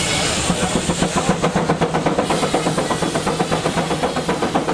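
Case steam engine belted to a sawmill, its exhaust chuffing at an even beat of about four a second. A hiss runs over the first couple of seconds.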